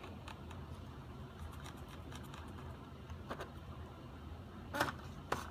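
Light plastic handling ticks, then two sharp clicks about half a second apart near the end, as a small plastic propeller blade is pressed onto a toy quadcopter's motor shaft, over a faint low hum.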